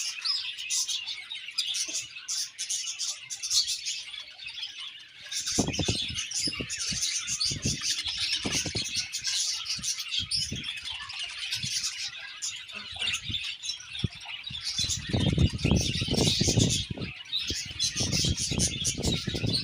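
A colony of budgerigars chirping and chattering continuously. From about five seconds in comes a run of short low knocks, densest near the end.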